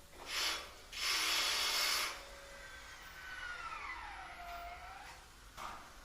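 Tool noise from work on a portable generator's casing: a short scraping burst, then a longer one lasting about a second, followed by a faint squeak that glides down in pitch.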